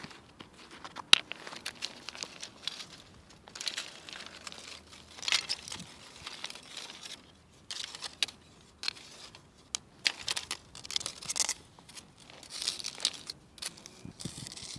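Dry plant stems, stones and a fabric bag handled as instruments for an improvisation: irregular crackling, rustling and scraping in short bursts, with sharp clicks, the sharpest about a second in.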